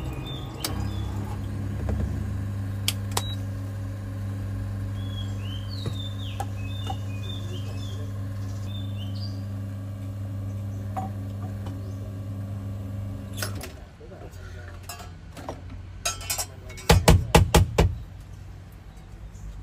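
Espresso machine pump humming steadily while a shot pulls into a glass, cutting out about thirteen seconds in as the shot ends. A few seconds later comes a quick run of about six sharp knocks, the loudest sound here, with faint bird chirps in the background mid-way.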